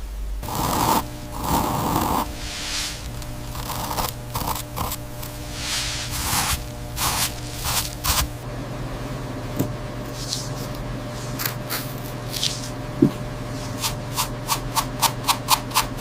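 Scraping strokes of a hand tool working a craft surface, irregular at first, then a quick run of short strokes, about three a second, near the end.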